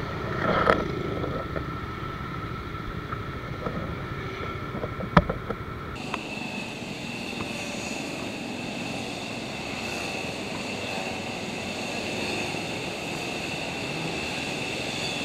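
Steady hum of motorbike traffic on a city street, with a single sharp click about five seconds in; the sound changes abruptly about six seconds in.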